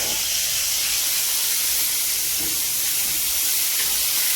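Chicken frying in hot oil: a steady sizzling hiss.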